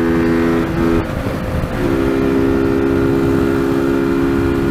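TVS Apache RTR 200's single-cylinder engine running at high revs at highway speed, with wind rushing over the handlebar-mounted camera's microphone. The engine note breaks up briefly about a second in, then holds steady again.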